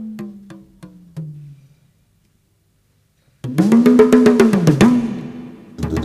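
Didgeridoo drone with sharp percussion clicks that dies away in the first two seconds. After a second or so of silence it comes back in loudly at about three and a half seconds, its tone pulsing in a rhythm about twice a second over steady clicking percussion.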